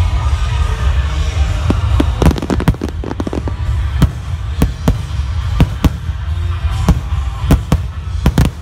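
Fireworks display: aerial shells bursting in quick, irregular succession, about twenty sharp bangs starting about two seconds in, over a steady low rumble.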